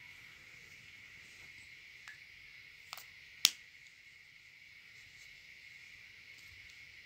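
A few light clicks from a plastic lipstick tube being handled, the loudest a single sharp click about three and a half seconds in, over a faint steady high-pitched drone.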